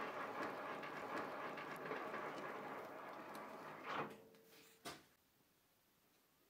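Lathe with a polygon-turning attachment, its rotating two-tooth cutter cutting a five-pointed star into an aluminium disc: a dense scraping cutting noise that dies away about four seconds in, followed by a single short click.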